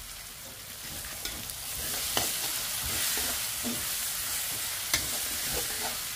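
Ground chilli, shallot and garlic spice paste sizzling in hot oil in a wok as it is sautéed and stirred, with a steady hiss and a few clicks of the utensil against the pan.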